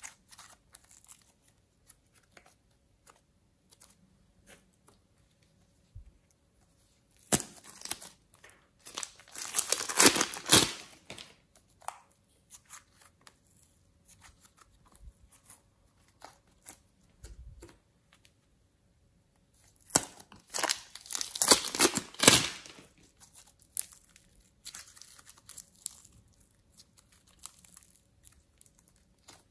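Slime being stretched and pulled apart by hand, making sticky crackling and tearing sounds. Two louder bursts of crackling come about a third and about two thirds of the way in, with soft scattered clicks between them.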